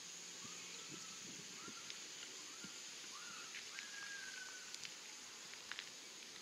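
Faint rural ambience: a bird gives several whistled calls, each sweeping up and then holding a steady note, over a steady high hiss.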